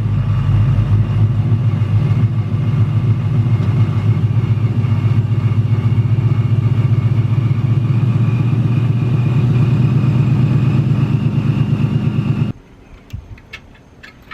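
2018 Mustang GT's 5.0 Coyote V8 idling steadily just after being started on fresh Rotella T6 5W-40 diesel oil, which the owner credits with curing its engine tick. It is shut off about twelve seconds in and stops suddenly.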